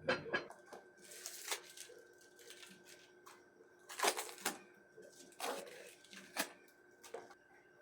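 Household items being handled: a scattering of short clicks and knocks with a few brief rustles, the loudest about four seconds in.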